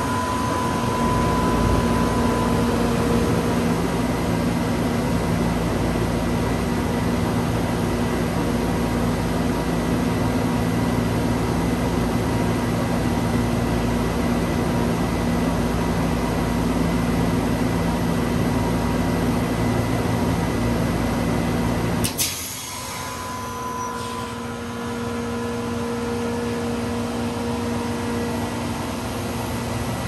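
1983 Whirlpool heat pump outdoor unit running with a steady compressor and fan hum. About three-quarters of the way through, a sharp click and a two-second refrigerant whoosh come as the reversing valve shifts and the unit is forced into defrost. The unit then runs noticeably quieter.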